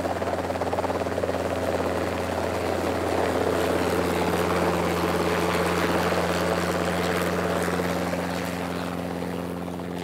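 Steady engine drone with a low hum, growing louder through the middle and easing off near the end.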